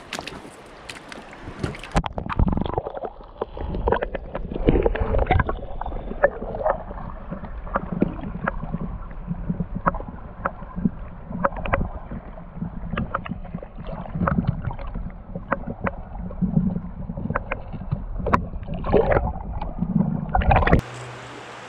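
Water sloshing and gurgling heard through a camera held under water in a shallow stony creek, muffled, with many sharp clicks and knocks. The sound goes muffled about two seconds in and opens up again shortly before the end as the camera comes back out of the water.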